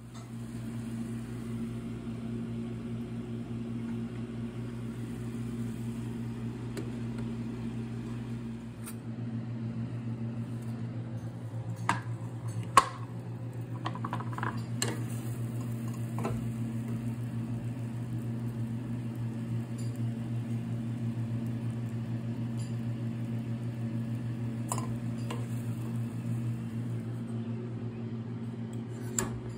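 A steady low electric motor hum from a kitchen appliance, with scattered clinks and knocks of cookware and utensils over it. The loudest is a single sharp knock about 13 seconds in.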